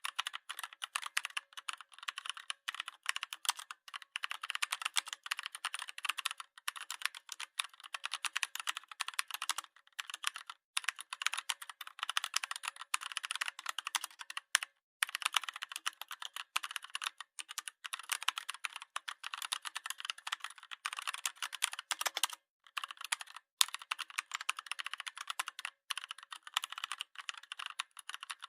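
Rapid, dense, irregular clicking, like keys being typed, with a few brief breaks.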